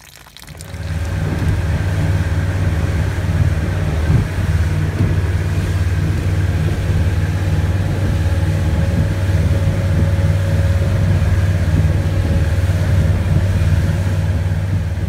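Inboard boat engine running steadily with the boat underway: a loud, even low drone with a faint steady hum above it, starting about a second in.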